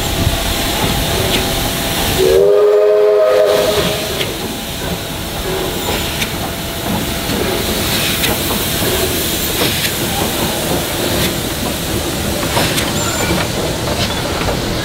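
Steam locomotive whistle giving one short blast of several notes sounding together, about two seconds in, over steady steam hiss as the engine moves slowly past.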